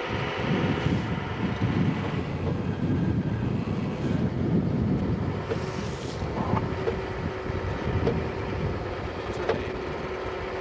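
Wind buffeting the camcorder microphone over the steady drone of a parasail tow boat's engine.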